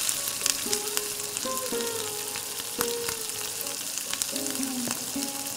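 Onion and ginger-garlic paste sizzling in hot oil and ghee in an aluminium pressure cooker, with a steady hiss. A spatula stirring the mixture makes frequent small scrapes and taps against the pot.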